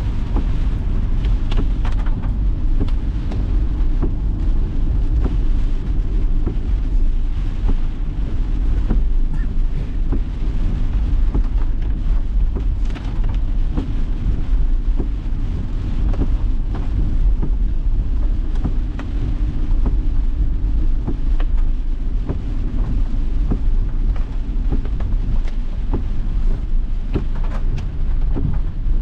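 Inside a car driving in heavy rain: a steady low road-and-engine rumble with raindrops pattering on the windshield and roof as scattered small ticks.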